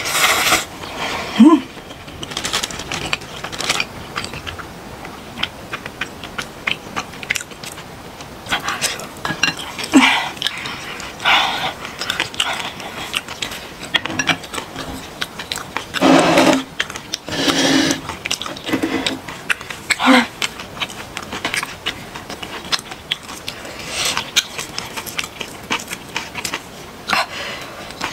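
Close-up eating sounds: chewing, smacking and slurping of black-bean-sauce instant noodles, with chopsticks clicking on the dishes. A few short hums or murmurs are mixed in, the loudest around the middle.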